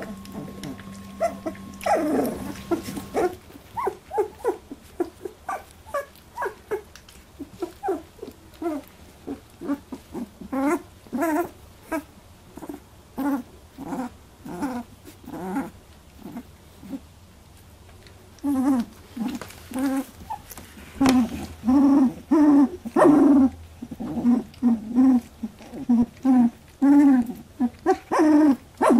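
Litter of Labradoodle puppies about 18 days old crying in a string of short, high whines and squeaks, sparse at first and coming thick and fast in the second half.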